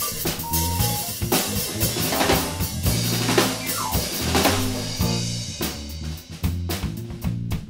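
Small live band playing, with the drum kit most prominent (kick, snare and rimshots) over guitar and keyboard. The drumming thins to more widely spaced hits in the last couple of seconds.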